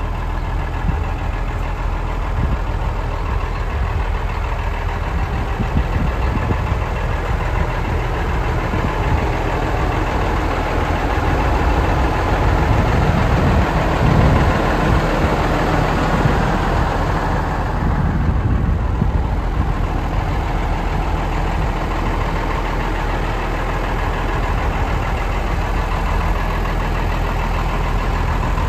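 1991 Ford L8000 truck's diesel engine idling steadily, swelling a little louder for a few seconds midway.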